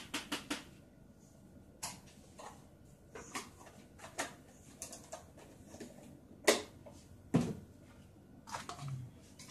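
Scattered light clicks and knocks of kitchen items being handled and set down, with two sharper knocks about two-thirds of the way in.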